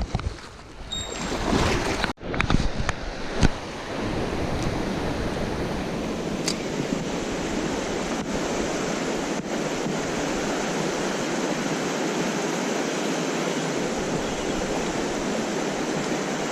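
Mountain stream water rushing steadily over rocks, with a few knocks in the first few seconds.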